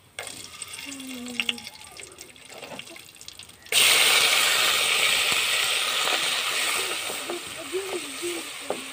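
Whole spices frying quietly in hot oil in an aluminium pot, then a sudden loud sizzle about four seconds in as chopped aromatics are dropped into the oil, the hiss slowly easing off.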